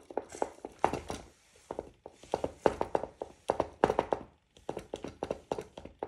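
Clusters of rapid clicks and taps, in bursts about a second apart, from a small plastic light-up toy fan being handled.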